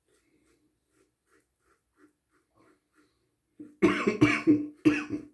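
A man coughing: a short fit of three or four harsh coughs in quick succession, starting near the end after a few seconds of quiet. It is the cough of congestion that he puts down to an upper respiratory tract infection.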